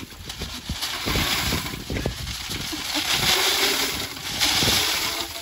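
Hail pellets pouring and rattling out of a flexible corrugated plastic downspout extension onto a pile on the grass: a steady hiss that grows stronger in the second half, over a low irregular rumble.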